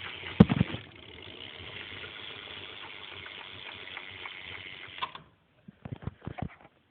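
BMX rear cassette hub (Haro 25/9 conversion wheel) freewheeling, its pawls clicking rapidly as the wheel spins, until it stops about five seconds in. A knock comes near the start and a few more near the end.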